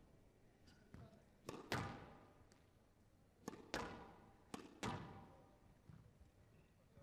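Squash ball being struck and rebounding on a glass court: sharp, echoing cracks, mostly in pairs about a quarter second apart, three pairs in all, the loudest just before the two-second mark.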